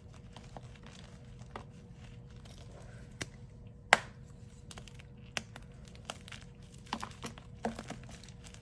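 Scattered light clicks and taps with some crinkling, over a faint steady hum; one sharp tap about four seconds in is the loudest.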